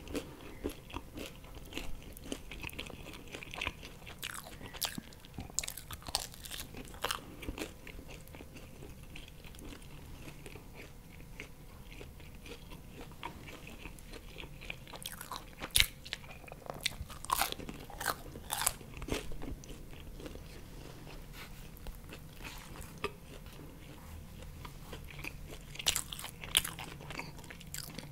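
Close-miked chewing of pizza: wet mouth clicks and soft crunches at irregular intervals. There is a cluster of louder ones about 16 to 19 seconds in and another near the end.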